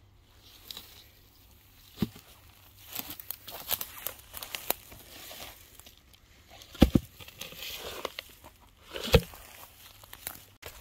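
Dry pine straw rustling and crackling underfoot and under hand as cover boards are lifted and turned over, with scattered knocks; the two loudest thumps come about seven and nine seconds in.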